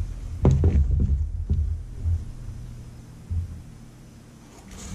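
Handling noise as a leather Nike Dunk Low sneaker is picked up and turned in the hands: a few soft knocks and low rumbling in the first two seconds, then quieter with an occasional faint bump.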